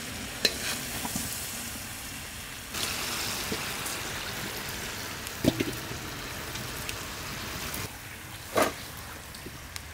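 Cauliflower florets deep-frying in hot oil in a large wok: a steady sizzle that grows louder about three seconds in and eases near eight seconds. A few sharp clinks of a metal ladle against the wok, one of them ringing briefly.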